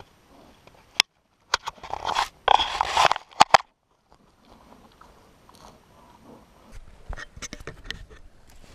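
Brown bear cub's claws scraping and scratching on tree bark at close range, with several sharp knocks and a burst of harsh scraping in the first few seconds. After a short pause, fainter rustling and clicks follow near the end.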